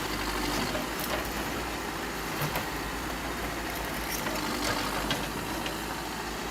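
Diesel engine of a bulldozer-type earthmoving machine running steadily at a demolition, with a few faint clicks and knocks over it.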